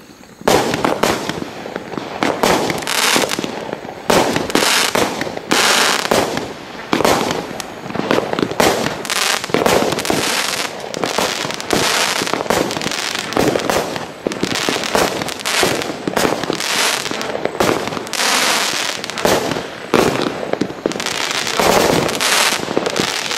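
Storm Shadow multi-shot firework firing a rapid, unbroken barrage. Each shot launches and bursts with sharp bangs, and the bursts throw out crackling glitter stars. The volley starts about half a second in.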